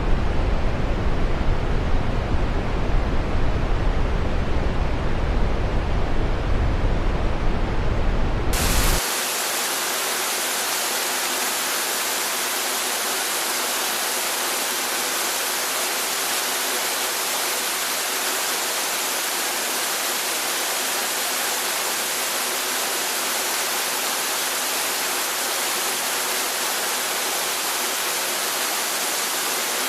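Steady rushing water, like a stream or waterfall. About nine seconds in it switches abruptly from a deep, rumbling rush to a brighter, even hiss with little bass.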